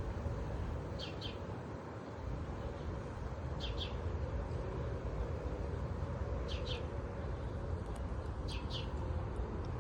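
A bird calling a short doubled chirp four times, every two to three seconds, over a steady low background rumble.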